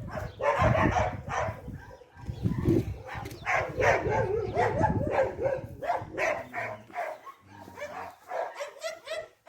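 A dog whining and yipping in a string of short, high, wavering calls, with a low rumbling noise underneath for the first few seconds.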